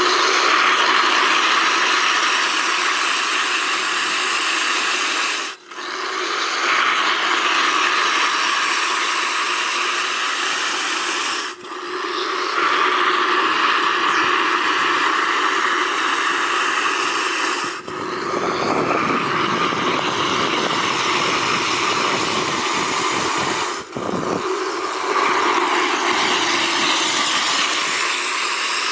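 Thermal spring's jet of water spouting and splashing, a steady rushing hiss that dips briefly about every six seconds.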